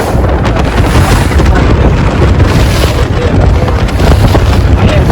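Heavy wind buffeting the microphone aboard a speedboat running at speed: a loud, continuous low rumble over the sound of the boat and water.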